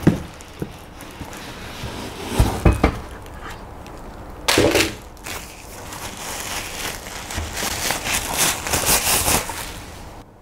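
A plastic packaging bag rustling and crinkling as a device is lifted out of its box and unwrapped, with a few low bumps about two and a half seconds in.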